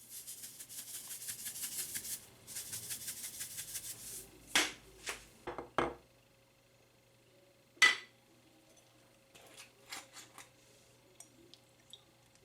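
Fast rattling or scraping for about four seconds, then a string of sharp clicks and knocks from objects being handled, the loudest a single knock about eight seconds in.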